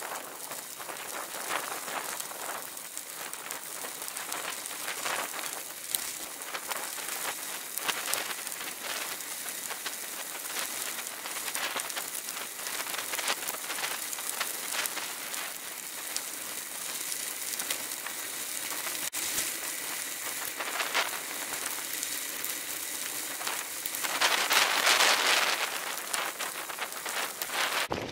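Bicycle tyres rolling over a loose gravel road, a continuous crunching crackle. A louder rush of noise comes about twenty-five seconds in.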